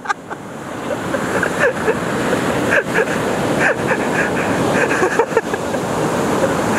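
Ocean surf breaking and washing up the beach: a steady rushing noise that swells over the first second and then holds.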